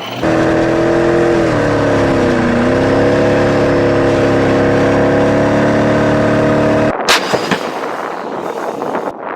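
Heavy military vehicle engine running with a steady whine, its pitch dropping and rising again once. It cuts off abruptly near the end, followed by a few sharp reports of gunfire or explosions.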